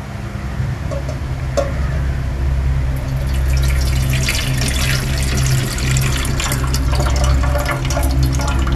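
Water poured from a glass jug into an empty stainless steel saucepan, the splashing stream getting louder over the first few seconds and staying busy as the pot fills.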